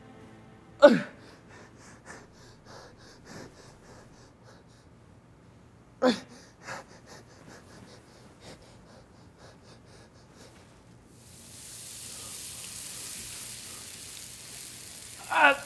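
A man gasping and groaning in pain in short, separate breaths: a loud one about a second in, another about six seconds in, with fainter ones between. A steady hiss comes in about eleven seconds in.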